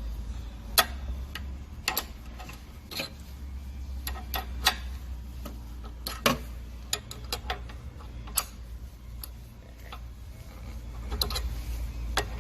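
Small metal wrenches clicking and clinking against a bicycle pedal's axle nut and crank as the nut is tightened: irregular sharp ticks every half second or so, over a steady low hum.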